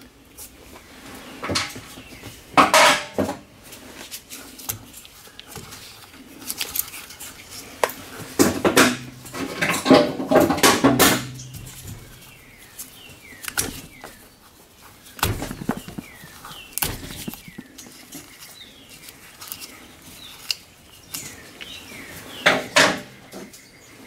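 Steel diagonal side cutters clicking and snipping at the wires of a steering-wheel horn switch, with scattered small metal tool clinks. A dense run of clicks comes about a third of the way in.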